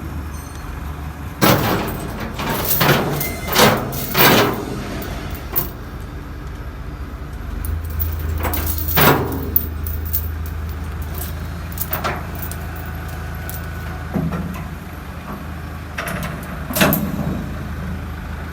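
Heavy metal-on-metal clanks and scrapes during the crane unloading of a scrap metal baler from a truck, over a steady low engine hum. The clanks come in a cluster in the first few seconds, then singly about nine and seventeen seconds in.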